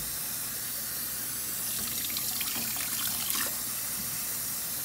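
Kitchen tap running steadily into a stainless steel sink as fruit is rinsed under it, with a few faint knocks partway through.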